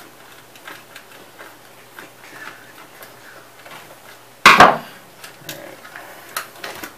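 Small clicks and scrapes of hands working at the plastic housing of a Sony Mega Watchman portable TV while the antenna mast is taken off. One loud, sharp knock comes about four and a half seconds in.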